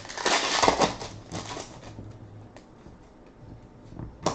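Basketball trading cards handled by hand: a rustling slide of card stock in the first second, then a few light ticks and a sharper tap near the end.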